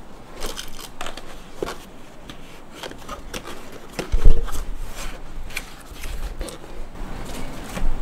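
Cardboard keyboard box being handled and opened, its lid lifted off: scattered scrapes, rustles and small knocks of the packaging. One loud thump about four seconds in.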